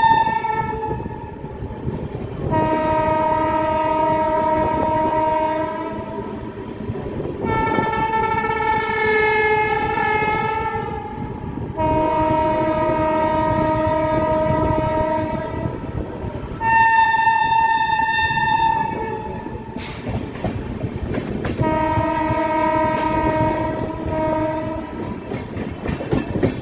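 Shrill horn of a WAP-7 electric locomotive, heard from aboard the moving train. It sounds five long blasts of three to four seconds each over the rumble and clickety-clack of the wheels on the rails. The second blast wavers in pitch, and the fourth is brighter and cuts off sharply.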